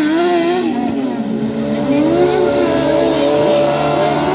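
Kartcross buggy engines revving hard on a dirt race track, the pitch rising and falling repeatedly as the drivers accelerate and lift.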